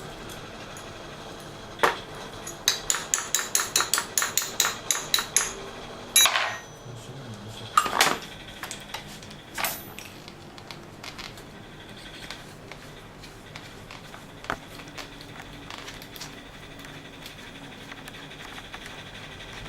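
Metal tools and fittings clinking and knocking: one sharp knock, then a quick run of about a dozen metallic clicks at roughly four a second, then a few louder clanks, fading to faint scattered taps.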